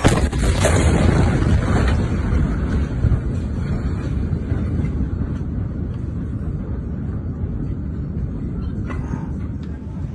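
Steady low outdoor rumble, easing slightly over the seconds, with a sharp pop right at the start and a fainter one about nine seconds in.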